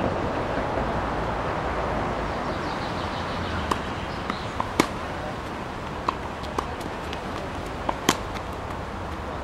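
Sharp pops of a tennis ball on racket strings and court, a few scattered through, the loudest about eight seconds in as a serve is struck. A steady rush of background noise runs underneath.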